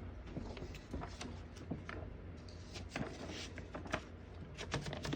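Scattered light clicks and knocks, a dozen or so spread irregularly, from the 1915 Corona Folding portable typewriter's parts being handled.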